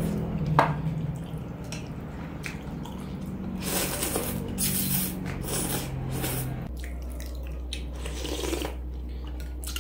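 A person slurping rice noodles and sipping soup broth from a bowl of bún bò Huế, with wet chewing and slurping mouth sounds. A cluster of several slurps comes in the middle.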